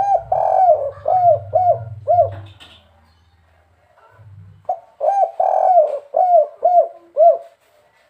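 Spotted dove (derkuku) cooing its 'kuk 3' song: two phrases, each a run of five or six short notes that rise and fall in pitch, with a pause of about two seconds between them.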